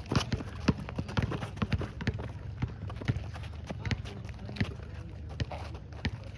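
Basketball players running on a hard court, with a ball bouncing: a string of quick, irregular thuds and footfalls.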